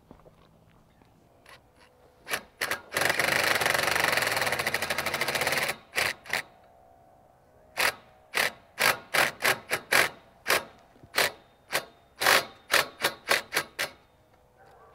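Cordless power driver with a socket running a bolt through the curtain pipe into the chuck of the roll-up curtain gear motor: a couple of short bursts, one long rattling run of about three seconds, then a dozen or more short trigger bursts as the bolt is snugged down.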